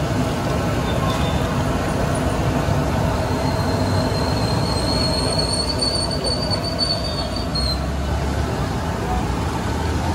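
Mysore bondas deep-frying in a large kadai of bubbling oil: a steady sizzle over a dense street background. A thin, high, whistling squeal holds for several seconds from about three seconds in.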